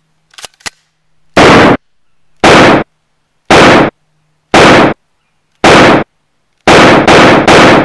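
Two faint clicks, then a series of shotgun blasts added as a sound effect: six about a second apart, then three in quick succession near the end. Each blast is short and very loud, with a clipped, distorted top.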